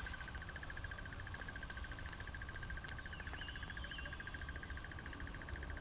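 Bush ambience: a steady, rapidly pulsing insect trill, cricket-like, with four short high bird chirps and a couple of brief thin whistles over it.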